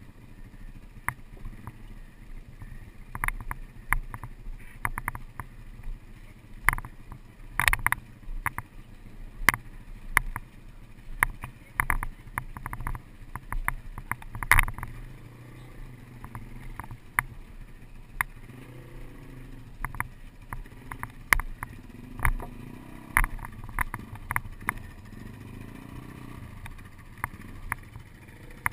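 Loose wooden planks of a footbridge knocking and clattering in irregular sharp knocks as a Beta 250RR dirt bike is walked across them. The bike's engine idles in a low steady hum underneath.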